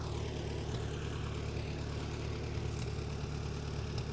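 An engine idling: a steady low hum that holds even throughout.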